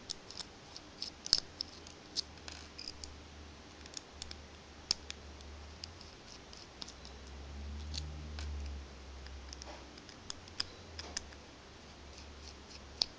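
Light, irregular clicks and ticks of a Phillips jeweler's screwdriver turning out the tiny case screws of a 9g micro servo, with the small plastic case being handled.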